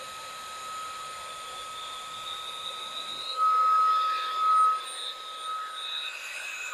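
Portable car vacuum cleaner's small motor running, with a steady high whine over a rush of air that briefly gets louder about halfway through.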